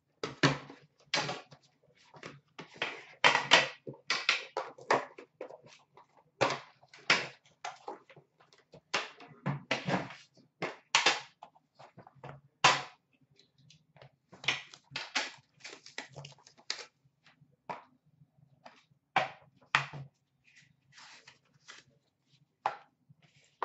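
Cardboard hockey card box being opened and unpacked by hand: irregular rustling, scraping and light knocks of the packaging as the box, lid and inner case are handled. A faint steady low hum runs underneath.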